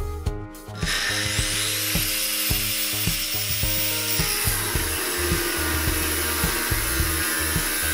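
Handheld angle grinder starting about a second in, its whine rising as the disc spins up. It then runs steadily as it cuts through the metal bumper-reinforcement mount.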